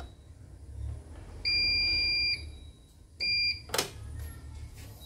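CNY portable embroidery machine's buzzer beeping as it powers up: one long beep of nearly a second, then a short beep about a second later, followed by a sharp click.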